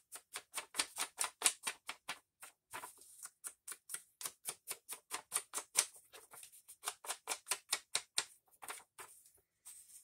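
An ink pad dabbed and rubbed along the edges of a piece of paper in quick repeated strokes, about four or five a second, with a brief pause a couple of seconds in and another near the end.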